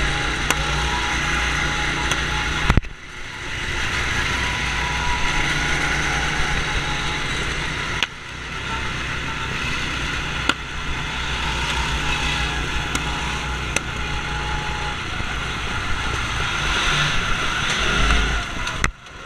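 Go-kart engine running steadily under the driver, with wind rushing over the head-mounted camera's microphone. The sound dips sharply for a moment three times.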